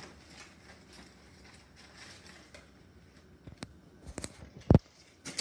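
Cookware being handled: after a quiet stretch, a few light clicks and knocks, then one sharp clack a little before the end.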